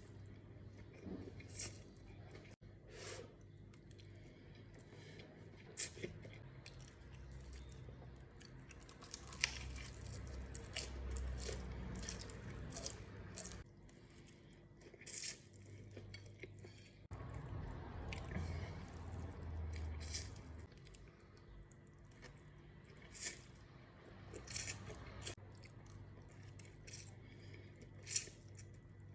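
Close-miked mukbang eating sounds: crunching into fried chicken and wet chewing of pasta in stew, with many short, irregular crunches and smacks.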